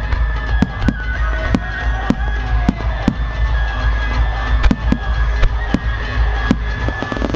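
Aerial firework shells bursting in quick, irregular succession, about a dozen sharp reports, over music and a steady low rumble.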